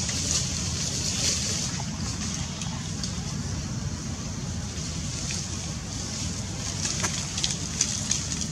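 Outdoor ambience: a steady low rumble under a high hiss that swells and fades, with a few light clicks near the end.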